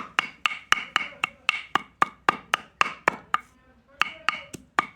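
Kitchen knife chopping food rapidly on a wooden board, about four even strokes a second, with a short pause about three and a half seconds in.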